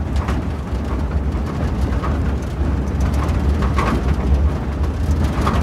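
Wind buffeting the microphone, heard as a steady low rumble over an even rushing hiss, with a few short higher chirps.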